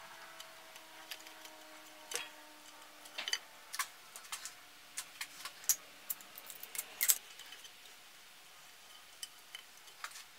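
Light, irregular clicks and taps of small metal parts being handled while a small electric motor is taken apart by hand: wires, brush holders and screws knocking against the motor housing.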